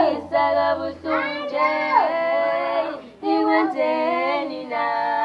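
Young women singing unaccompanied, holding long notes with slides in pitch between them and short breaks for breath.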